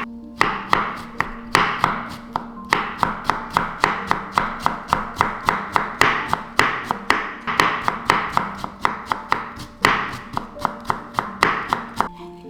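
Quick, repeated knife strikes on a cutting board, about three to five a second, over background music.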